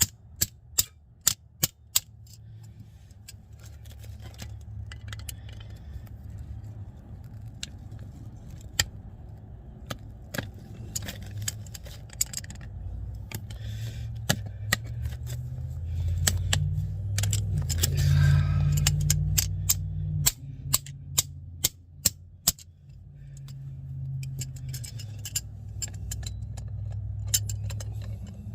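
Metal hand tools clicking and clinking against drum-brake hardware in short, sharp, irregular taps, while working to break a stuck part loose. Underneath is a low rumble that swells for a few seconds about two-thirds of the way through.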